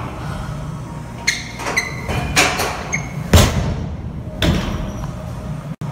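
Barbell loaded with Eleiko bumper plates dropped from overhead onto a wooden lifting platform: one heavy thud about three and a half seconds in and a smaller knock about a second later, after a few lighter clicks and clanks.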